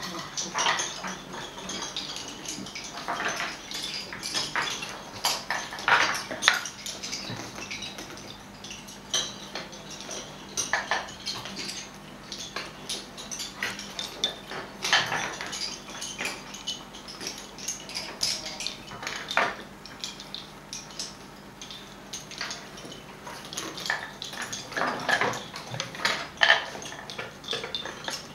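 Wooden lace bobbins clicking and clacking against one another as several lacemakers work bobbin lace, a continual patter of small clicks with louder flurries every few seconds.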